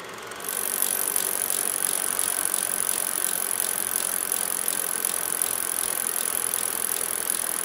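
A steady mechanical whirr with light, evenly spaced ticks over a hiss, coming in about half a second in.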